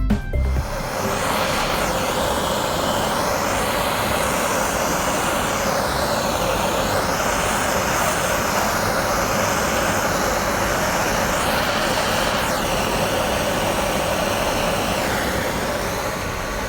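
Compressed-air spray gun spraying, a steady loud hiss of air and atomised coating whose tone shifts slowly as the gun moves.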